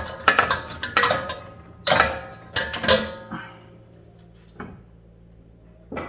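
Stainless steel bowls clanking against each other and against the dishwasher's wire rack as they are loaded, each knock followed by a short metallic ring. There are four loud clanks in the first three seconds, then two lighter knocks.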